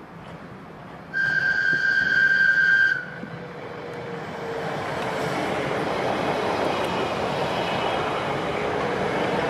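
A London Underground 1983 tube stock train sounds its horn once, a single steady high note held for about two seconds, then the running noise of the train swells and carries on as it comes through.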